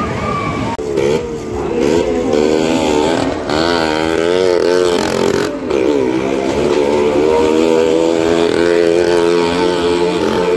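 Motorcycle engine revving hard as it rides round the steep wall of a well-of-death drum. Its pitch rises and falls in waves at first, then holds steadier from about six seconds in.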